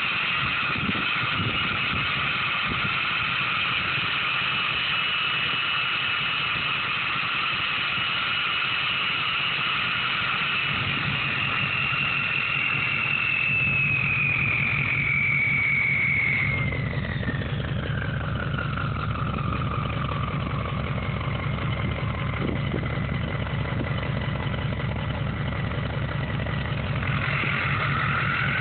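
Turbocharger on a 2003 Ford 6.0 Power Stroke V8 turbo-diesel, running with a straight-pipe exhaust, making a strange high-pitched whistle over the engine's sound. The whistle holds steady, glides down in pitch from about halfway through, and climbs again near the end. The owner has never heard another Powerstroke sound like this.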